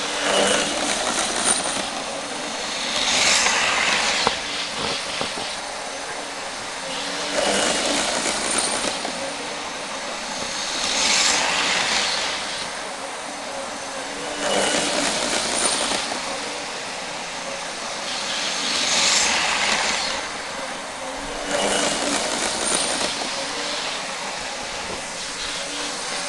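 Hornby model trains, a Class 43 HST and a Class 390 Pendolino, running round a layout. The whir of their motors and the clatter of their wheels swell and fade as they pass close by, about every three to four seconds.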